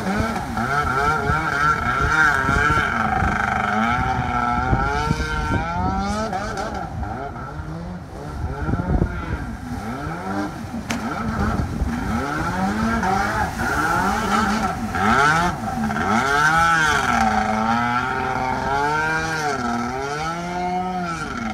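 Sea-Doo jet ski's two-stroke 720 engine revving hard as the ski whips tight donuts and turns, its pitch rising and falling over and over, with water spraying off the hull.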